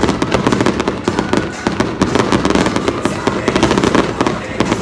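Display fireworks going off in a dense, rapid barrage: many sharp bangs and crackles a second, overlapping without a break.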